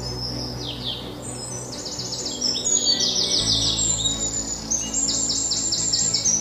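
Birdsong of rapid, high, repeated chirping trills over soft background music of sustained low chords, which change about three and a half seconds in.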